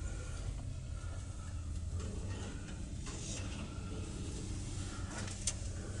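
Old Westinghouse elevator car travelling upward, with a steady low hum and rumble. A single sharp click comes near the end.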